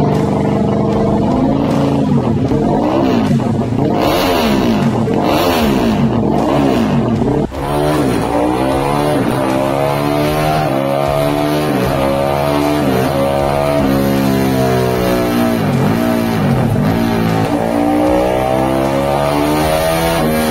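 Honda Sonic 200 drag-race engine, a single-cylinder four-stroke, revving hard on a motorcycle dynamometer. A brief drop comes about seven and a half seconds in, after which the revs rise and fall over and over.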